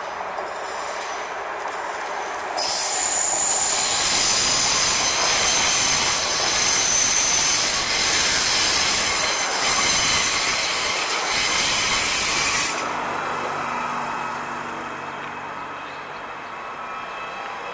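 Electric passenger train running past close by on the nearby track, its wheels squealing on the rails with several high, steady squeal tones over the rolling noise. The loud squeal stops sharply about thirteen seconds in, leaving a quieter hum.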